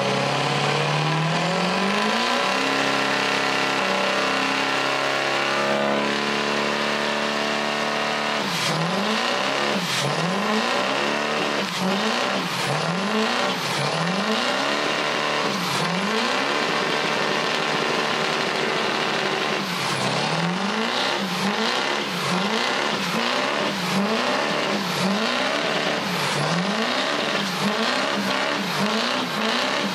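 Ford Super Duty diesel pickup doing a burnout, tires spinning on the pavement. The engine revs climb steadily for the first several seconds, then rise and fall about once a second as the throttle is worked.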